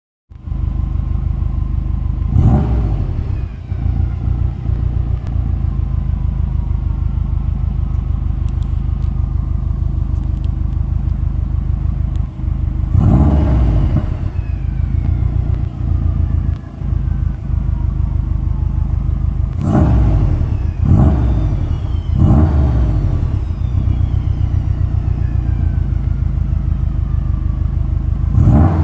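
Subaru STI's turbocharged flat-four idling with a deep, steady exhaust note, blipped six times; after each blip a turbo whistle falls away over several seconds.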